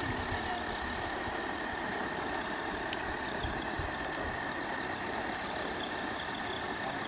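The electric drivetrain of a 1/10-scale RC trail truck running steadily under heavy load as it drags a weight-pulling sled over dirt: a thin, steady high whine over an even rushing noise.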